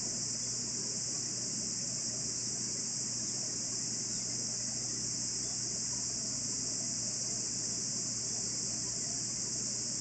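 Cicadas in the surrounding forest making a steady, high-pitched shrill that does not change, with a faint low steady hum underneath.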